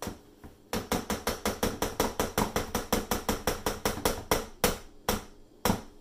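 The metal head of a stick blender knocking against the side of a mixing bowl of soap batter, a rapid run of sharp knocks at about five a second, slowing to a few separate knocks near the end. The blender is not running.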